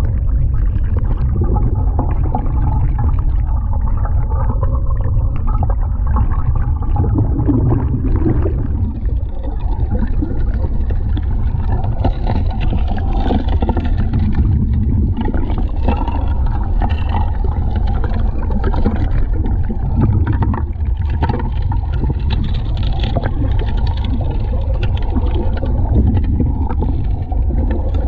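Underwater sound of a gold suction dredge at work: a steady low rumble, with many small clicks of gravel and stones rattling against the nozzle as they are sucked in.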